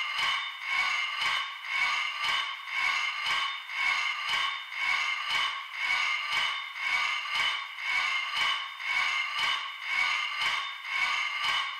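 Film end-credits soundtrack: a steady pulsing rhythm at about three beats a second, with a sustained high tone running through it.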